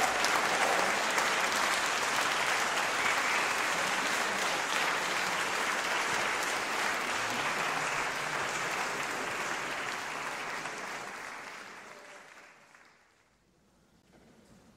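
Audience applauding, dying away about twelve seconds in.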